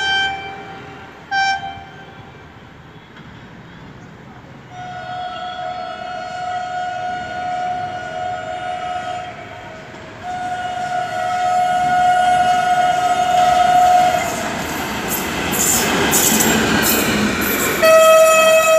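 WAP-4 electric locomotive running light. It gives two short horn toots, then two long horn blasts as it approaches, then passes close with a rising rumble and rapid wheel clicks over the rail joints. Another horn, lower in pitch, starts near the end.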